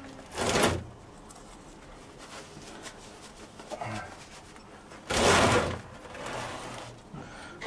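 Two brief rasping handling noises from someone working by hand in a boat's engine room: a short one just under a second in and a longer, louder one about five seconds in. In between are faint, quiet rustles.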